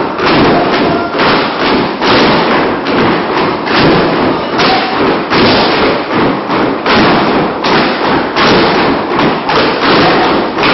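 Many clogs striking a wooden floor together as a group clog dances, a dense clatter of steps in a steady rhythm.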